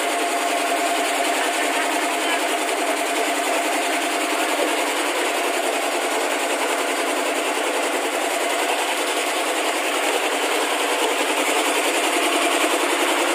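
Machinery running steadily: a loud, even mechanical din with no breaks, and a faint steady whine in the first few seconds.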